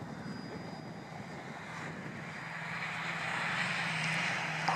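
Electric motor and propeller of a ParkZone T-28 radio-control model airplane buzzing in flight. It is a steady hum that grows louder over the second half.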